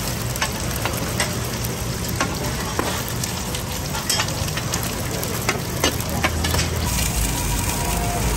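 Pan-fried dumplings sizzling in oil on a large round flat griddle, with a steady hiss and many sharp clicks and scrapes of a metal spatula on the pan as the dumplings are lifted.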